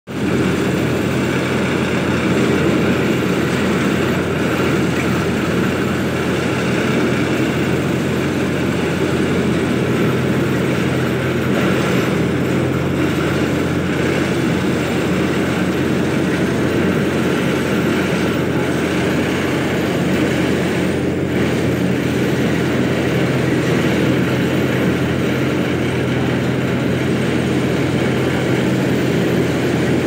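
Yanmar mini excavator's diesel engine running at a steady drone as the machine digs.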